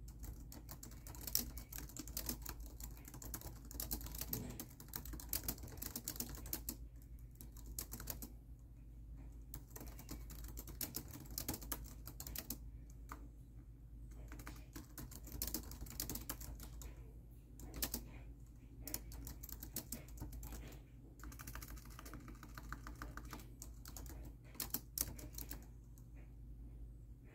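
Fast typing on a laptop keyboard: quick runs of key clicks broken now and then by short pauses, over a low steady hum.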